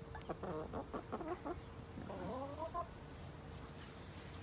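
Chickens clucking: a quick run of short clucks in the first second and a half, then a longer call about two seconds in.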